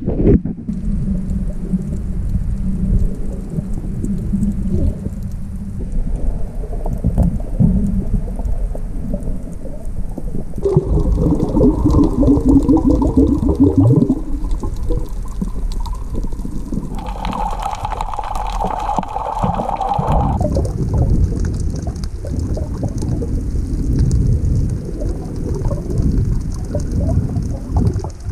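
Underwater ambience heard through a submerged camera: a low, muffled rumble of moving water, with humming tones about a third of the way in and again a little past the middle.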